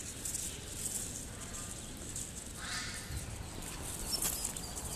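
Dense, steady chorus of many laying-duck ducklings peeping in their crates, with one brief pitched call standing out about two and a half seconds in.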